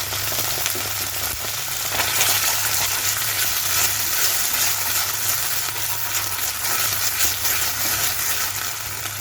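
Chopped onion, capsicum and sauces sizzling steadily in hot oil in a pan over a high flame, with faint clicks of a spatula stirring them.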